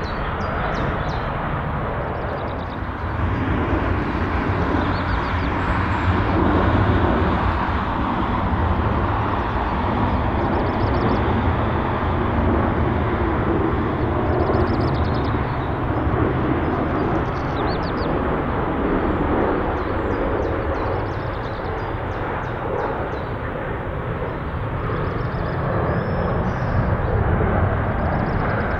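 Jet airliner engines heard at a distance during landing and rollout, a steady low rumbling engine noise that swells and eases slightly a few times.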